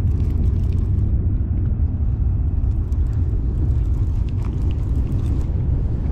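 Steady low rumble of wind buffeting the microphone, with a few faint ticks from a conventional fishing reel as its handle is cranked to bring in line.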